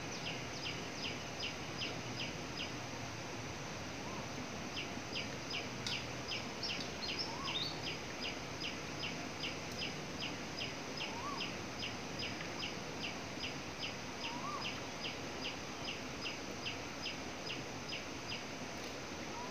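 A bird calling: a rapid series of short, high, downward chirps, about three a second, breaking off for a couple of seconds near the start and then resuming. It sounds over a steady outdoor background hiss, with a fainter rising note every few seconds.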